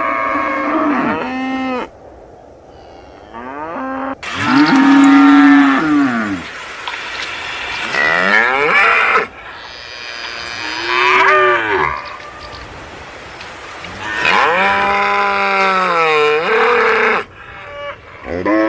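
Cows mooing: about half a dozen separate moos, each one to three seconds long, that bend up and then down in pitch. Some start or break off abruptly, as if spliced one after another.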